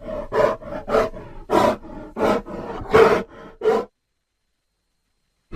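Grizzly bear sound effects: a run of about eight short, rough growls in under four seconds, the loudest about three seconds in, then silence.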